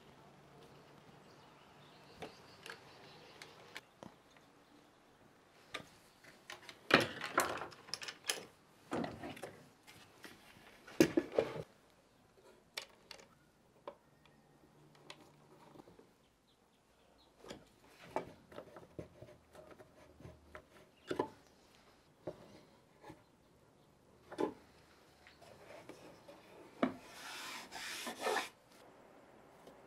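Quiet hand work on wood: a screwdriver driving small screws into a brass hinge, then a hinged wooden lid being handled and closed on a plywood box, with scattered clicks and knocks and a few louder rubbing scrapes.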